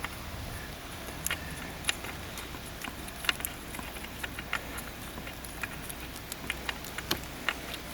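Irregular light clicks and taps of tools and parts being handled during hands-on work in an engine bay, over a low steady hum.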